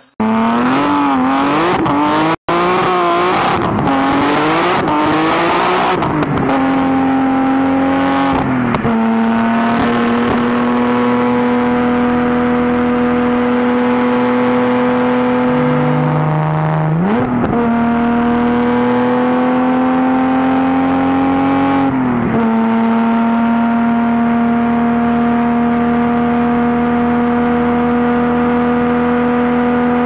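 BMW E30 engine: first a few seconds of revving that rises and falls unevenly as the car drifts, then a steady run at high revs, the engine note holding a flat pitch that breaks and resettles three times.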